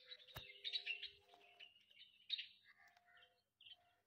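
Small birds chirping and twittering in quick, overlapping calls, busiest in the first two seconds and thinning out after, with one sharp click about half a second in.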